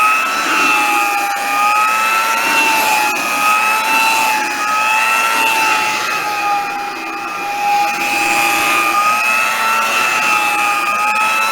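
Vintage Hamilton Beach hand vacuum cleaner running with a steady high-pitched motor whine and suction rush, the pitch wavering slightly up and down as it works over carpeted stairs.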